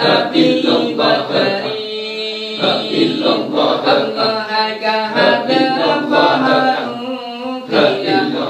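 A group of men chanting in unison, the Sufi dhikr of the Madurese Samman ritual, a melodic chant whose pitch rises and falls without a pause.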